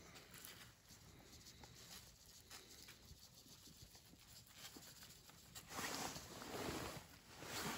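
Faint patter of borax bait cure being shaken from a plastic cup onto cured salmon skein, with louder rustling about six seconds in and again near the end.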